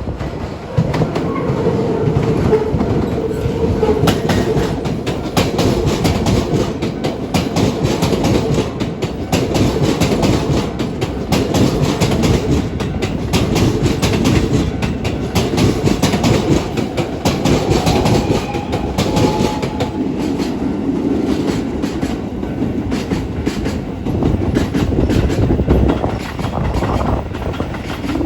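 Keisei AE-series Skyliner electric train running over a level crossing, its steel wheels clacking in quick succession over the rail joints and crossing.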